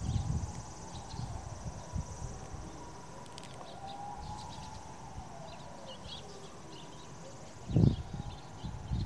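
Eurasian tree sparrows chirping, with short, scattered high calls. A faint siren-like tone rises and then slowly falls in pitch in the middle, and a low rumble swells near the end.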